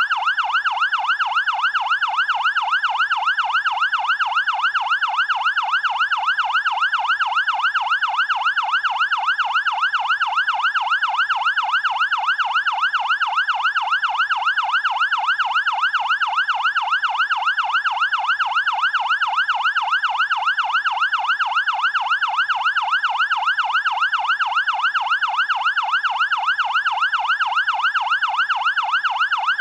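Fire engine's electronic siren on a fast yelp, its tone sweeping up and down about three times a second without a break.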